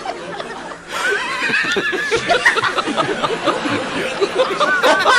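Crowd of many people laughing together, with a brief lull about a second in before the laughter swells back up.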